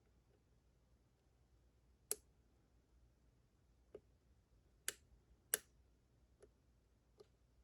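Pin-tumbler lock being single-pin picked with a lock pick and tension tool: about six scattered sharp clicks of the pick working pins in the keyway, three of them louder, against near silence.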